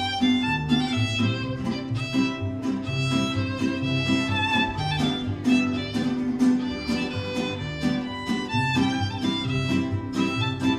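Instrumental folk music: a fiddle plays the melody over a steady, rhythmic accompaniment of strummed and plucked strings with a repeating bass line.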